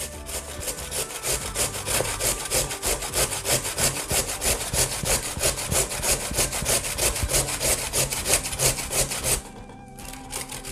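A carrot being grated on a metal box grater resting on a wooden chopping board: quick, rhythmic rasping strokes that stop about a second before the end.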